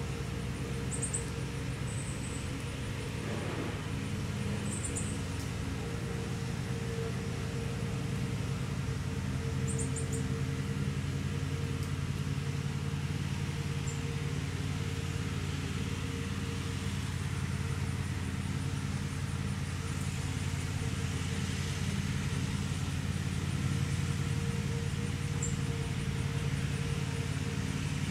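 Steady low mechanical hum of several level tones, with a few brief high chirps in the first ten seconds.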